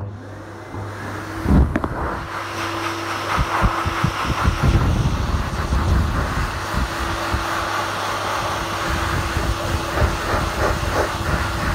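Dog-grooming blaster (high-velocity dryer) switched on, its motor and air rising over the first couple of seconds, with a sharp knock about a second and a half in. It then runs steadily, the air blast rushing and buffeting through the model head's synthetic hair to loosen the matting.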